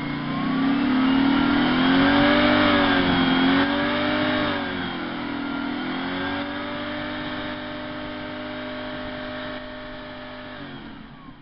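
TVR V8 engine being revved: its pitch rises and falls a few times, then is held at raised revs for several seconds before dropping back toward idle near the end.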